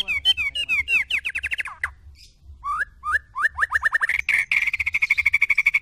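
White-rumped shama singing. A run of quick falling whistles, a short pause, then a string of rising notes that speeds up into a fast, steady rattling trill of about ten notes a second.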